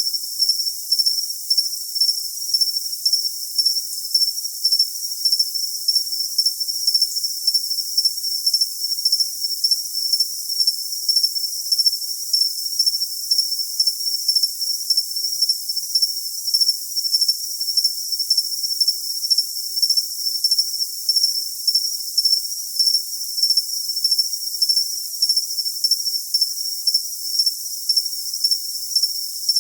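Cricket chirping: a shrill, high-pitched note pulsing in a fast, even rhythm, with no low sound underneath.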